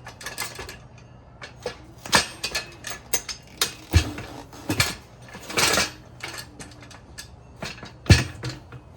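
Metal tools clinking, scraping and knocking against a motorcycle wheel as the rear tire's bead is worked loose from the rim, with two heavier thuds, one midway and one near the end.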